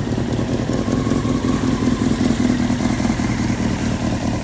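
1995 Honda CBR900RR's inline-four engine idling steadily.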